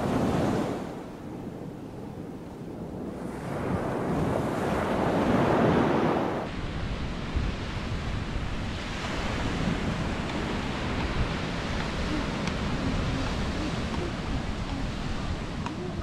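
Ocean surf breaking and washing up the beach, with wind buffeting the microphone. A wave swells to a surge about five seconds in and falls away sharply a second later, leaving a steadier, lower wash.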